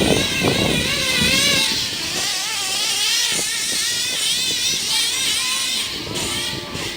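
Nitro RC truggy's Picco .28 two-stroke engine with a tuned pipe running at high rpm, its high-pitched whine wavering up and down as the throttle is worked. The owner reports a blown clutch bearing in this setup.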